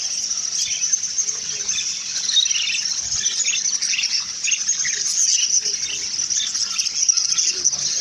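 Dozens of budgerigars chattering and chirping at once: a dense, steady high twittering with no break.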